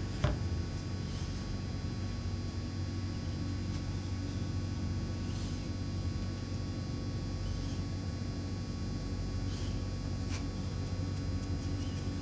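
Steady low room hum under light work noise: a foam brush dipped in a jar of Mod Podge and wiped over a small wooden sign, with a sharp click just after the start, another near ten seconds in, and a few faint soft swishes between.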